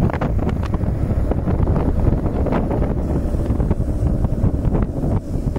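Wind buffeting the microphone: a loud, uneven low rumble that rises and falls in gusts.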